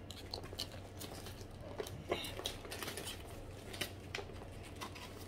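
Small scattered clicks and rustles of a Coach Tabby 26 leather handbag being handled and opened, with faint paper crinkling, over a low steady hum.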